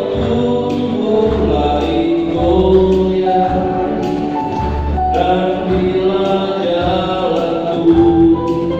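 A man singing a Christian hymn into a microphone through a PA, accompanied by an electronic keyboard playing sustained bass notes and chords, with other voices singing along.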